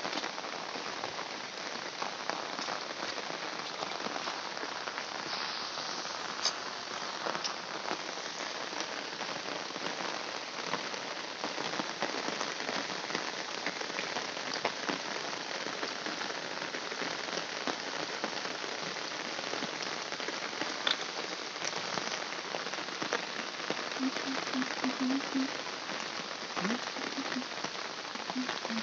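Heavy rain falling steadily: a dense, even hiss with many sharp ticks of individual drops striking surfaces.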